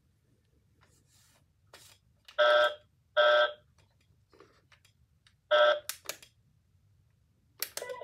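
Small robot toy dog giving short electronic beeping calls: two close together a few seconds in, a third a couple of seconds later, then a few clicks and short tones near the end.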